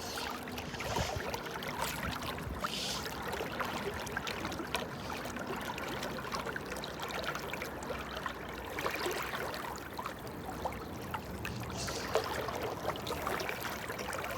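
River water flowing: a steady rush with small trickles and splashes scattered through it.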